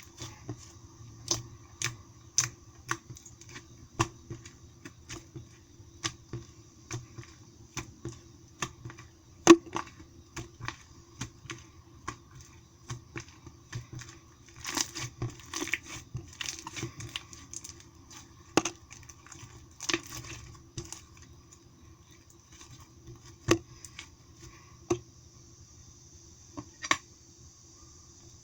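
Thick, heavy soft-clay slime being squeezed and stretched by hand, giving irregular sharp clicking pops, at times in quick runs, that thin out near the end.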